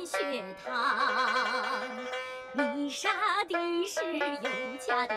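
Traditional Chinese-style music: a single melody line with sliding notes and a wide vibrato on a long held note about a second in.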